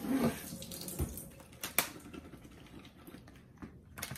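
Water from a kitchen tap splashing over blueberries being rinsed, strongest at first and thinning after about a second and a half, with a few sharp knocks and clicks as the berries and container are handled.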